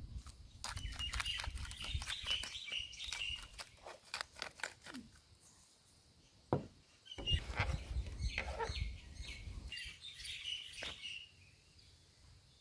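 Hand-twisted salt and pepper grinders clicking rapidly in two runs, a short pause between them.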